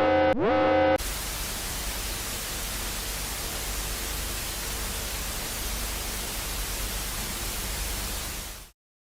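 A synthesized emergency-alert alarm tone, pulsing and rising in pitch at each pulse about every two-thirds of a second, cuts off about a second in. It is replaced by steady loud white-noise static, which stops abruptly near the end.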